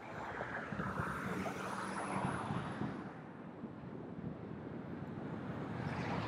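Road and wind noise of a car driving, picked up by a camera mounted outside the car, with wind buffeting the microphone. The rush swells about a second in, eases a little past the middle and builds again near the end.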